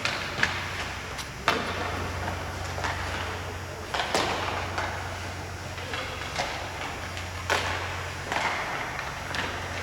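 Ice hockey play echoing in an arena: sharp clacks of sticks, puck and boards at irregular moments, some followed by skate blades scraping on the ice, over a steady low hum.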